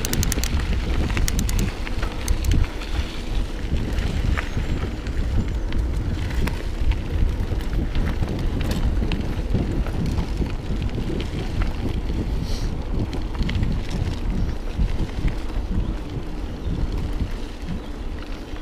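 Wind rushing over the microphone as a mountain bike rides down a rocky trail, with the bike clicking and rattling over the stones.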